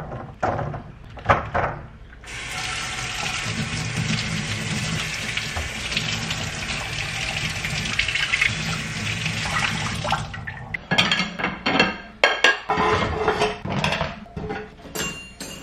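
A few knocks as apples are set down on a roll-up sink rack, then a pull-down kitchen faucet sprayer runs water over them for about eight seconds. After the water stops, dishes clatter and clink as they are loaded into a dishwasher rack.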